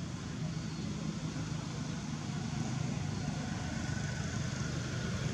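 A steady low rumble with no breaks or distinct events.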